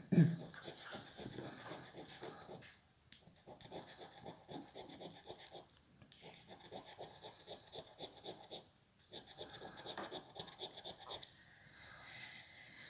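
Fingernail scratching the coating off a Gratta e Vinci 10X paper scratch card in quick back-and-forth strokes, in runs of a few seconds with short pauses between them. A dull knock right at the start.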